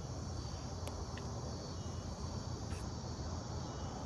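Steady chorus of crickets and other insects, a continuous high drone, over a low steady rumble with a few faint ticks.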